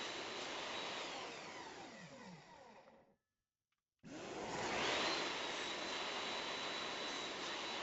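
A high-speed electric motor running steadily with a high whine, then switched off: its pitch falls as it winds down to nothing. After a brief gap of total silence it starts again and rises back up to full speed.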